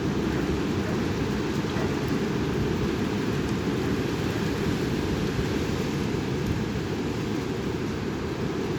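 Strong wind blowing across the microphone, a steady loud low rush with no letup.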